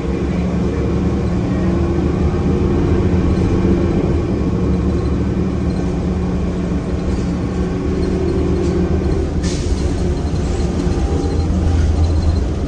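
Orion VII CNG transit bus under way, heard from inside the rear of the cabin: its Cummins Westport ISL G natural-gas engine and ZF six-speed automatic drivetrain running steadily. A sudden hiss cuts in about ten seconds in and fades away.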